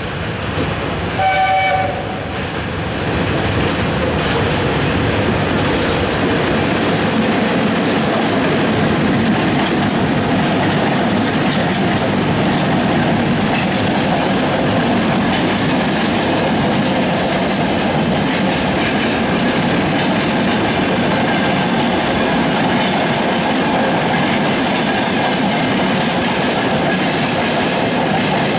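Short horn blast from a 2VL60K electric locomotive about a second in, then a long freight train rolling past close by with steady wheel-on-rail noise.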